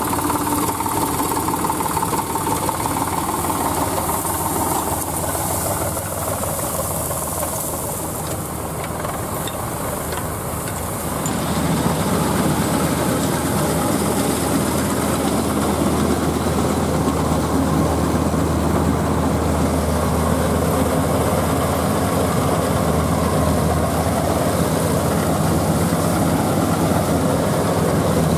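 Farm machinery engines running steadily. About a third of the way in the sound turns louder, with a steady low drone, as the Hind 999 combine harvester cuts wheat up close.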